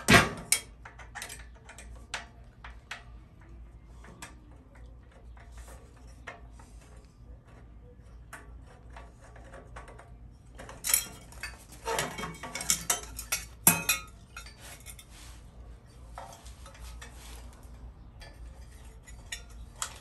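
Hand tools and metal parts of a tilt steering column clinking and clicking as it is taken apart by hand: a sharp click at the start, scattered light taps, and a burst of metal clatter from about 11 to 14 seconds in.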